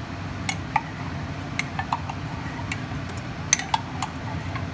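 A metal spoon clinks and taps against a stainless steel saucepan and a mug, a scatter of sharp clicks with a small burst a little before the end. Underneath is a steady low rumble.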